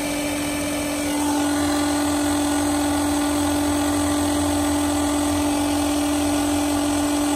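Electric fuel transfer pump running steadily with a constant whine, pumping a blend of waste motor oil and transmission fluid into a car's fuel tank. It gets a little louder about a second in, then holds steady.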